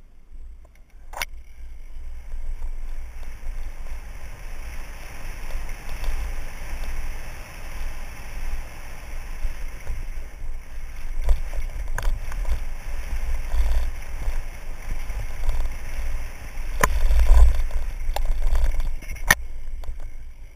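Mountain bike running fast down a dirt singletrack, heard through a helmet camera's microphone: heavy wind rumble over steady tyre-on-dirt noise, with sharp clacks as the bike rattles over bumps, once about a second in and several times in the second half.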